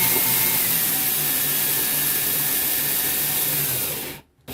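Cordless drill-driver running steadily, driving a wall outlet's mounting screw into the electrical box, then stopping abruptly about four seconds in; a short burst follows near the end.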